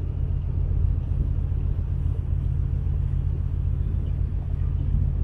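A large engine running steadily at constant speed: a deep, even rumble.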